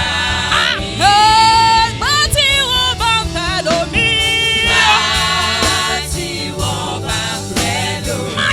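Gospel worship song: voices singing a melodic line with vibrato over steady instrumental backing.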